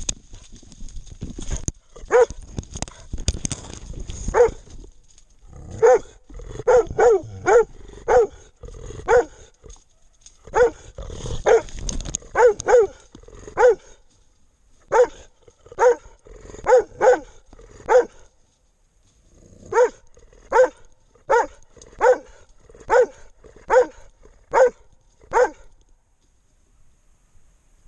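Hunting dog barking repeatedly in bouts of several short barks, about one to two a second, with brief pauses between bouts.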